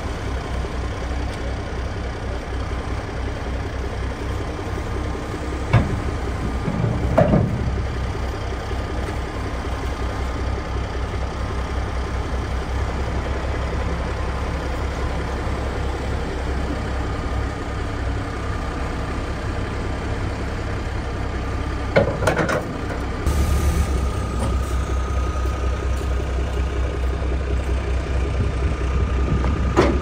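A large engine running steadily with an even low throb, with a few short knocks. About two-thirds of the way in, its sound shifts and a thin steady whine joins it.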